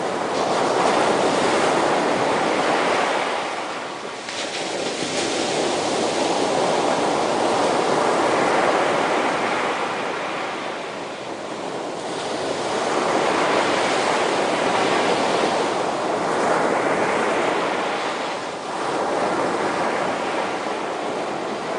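Ocean waves breaking and washing on the shore, the surf swelling and falling away about every six or seven seconds.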